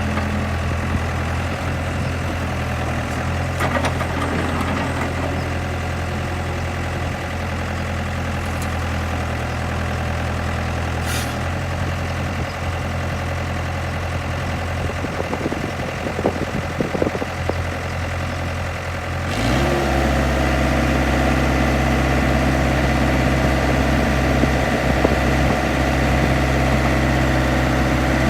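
New Holland backhoe's diesel engine idling steadily, with a few knocks, then revving up about two-thirds of the way through and holding a higher, louder steady speed.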